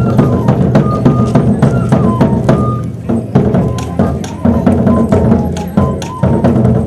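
Live traditional dance music: a high melody line stepping between a few notes over quick, repeated drum beats.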